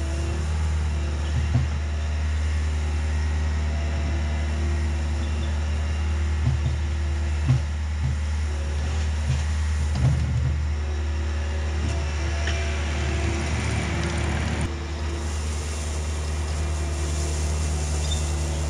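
Compact diesel work-machine engine running steadily, with a few short knocks and clunks over it.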